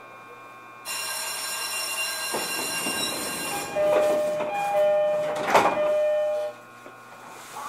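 Pre-departure sounds aboard a JR East E531 series train at the platform. An electronic signal rings steadily for about three seconds, then a two-tone door chime repeats. The doors shut with a short thud near the end of the chime.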